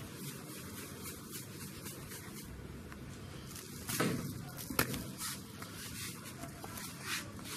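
Sesame seeds rustling as simit dough rings are pressed and turned in a tub of them, then the coated rings set down on a baking tray, with two sharper knocks about four and five seconds in.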